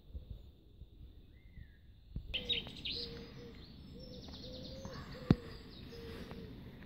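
Garden birds chirping and twittering in quick runs of high notes from about two seconds in, over a low rumble. One sharp click about five seconds in is the loudest sound.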